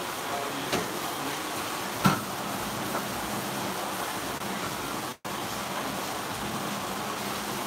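Steady hiss with a few light knocks and clinks of kitchenware, the sharpest about two seconds in. The sound cuts out for an instant about five seconds in.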